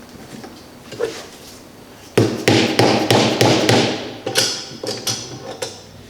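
Hammer striking metal tractor parts: one light tap, then a run of about ten quick sharp strikes beginning about two seconds in.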